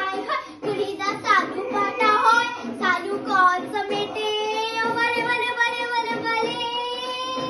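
A young girl singing: short sung phrases, then, about four seconds in, one long held note that rises slightly in pitch.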